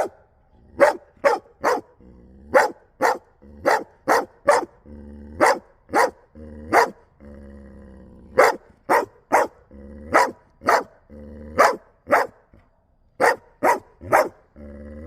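Belgian Malinois barking on command: a long series of about two dozen sharp single barks in quick runs of two to five, with short pauses between the runs.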